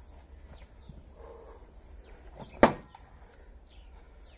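A single sharp crack of an axe striking a log on a chopping block, about two and a half seconds in; the blade bites in and sticks in the wood instead of splitting it. Small birds chirp repeatedly in the background.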